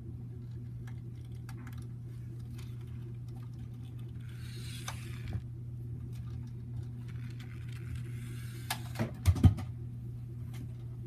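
Battery-powered light-up toy car running: a steady low motor hum with the clatter and clicking of its gears and wheels, and a few loud knocks about nine seconds in.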